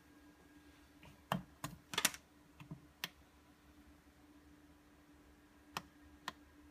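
Sharp clicks and knocks of a hand handling a hard plastic Floureon jump starter pack on a marble tabletop: a quick cluster of clicks one to three seconds in, then two more single clicks near the end, over a faint steady hum.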